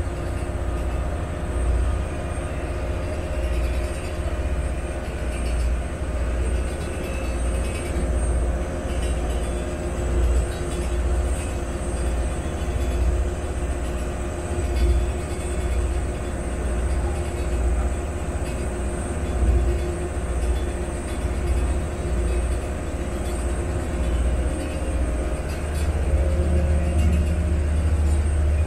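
Engine of a Venice water bus (vaporetto) running underway: a steady low drone with a constant hum, an uneven rumble swelling and fading beneath it, growing louder near the end.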